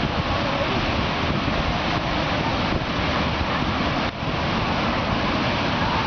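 Ocean surf washing onto the beach, mixed with steady wind buffeting the microphone.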